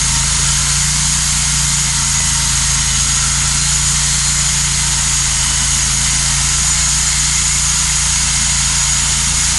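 Cook's MP-32 portable band sawmill running steadily: its engine holds an even speed under a constant high hiss.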